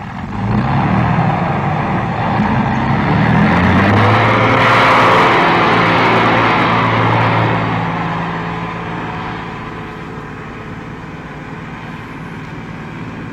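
Heavy snowplow truck's engine revving up and pulling away. Its pitch rises over the first few seconds, it is loudest about five seconds in, then it slowly fades.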